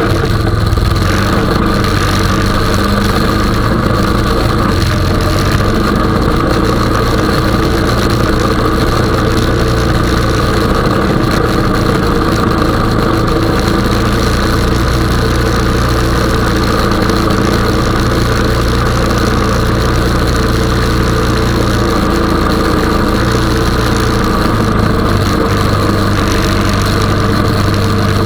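Honda 420 ATV's single-cylinder engine running steadily while plowing snow, its pitch shifting slightly now and then.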